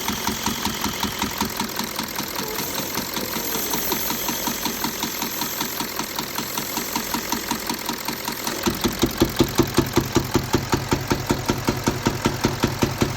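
Audi A8 D3's 4.2-litre V8 TDI diesel idling with a regular knocking pulse, about four a second. A bit more than halfway through, it gets suddenly louder with a stronger low drone. The owner says it runs normally yet the unexplained noise is still there.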